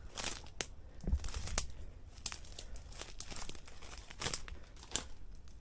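Dry grass and brush rustling and crackling underfoot in irregular, scattered steps.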